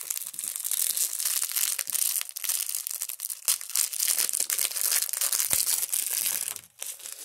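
Wrapping around a piece of jewelry being opened by hand: continuous crinkling and rustling with small crackles, pausing briefly near the end.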